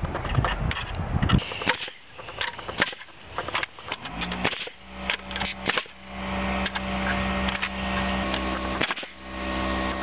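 Sharp snips and clicks of scissors cutting galvanized chicken wire. About halfway through, a steady hum sets in, with a Ridgid pneumatic nailer firing a few sharp shots into pallet wood over it.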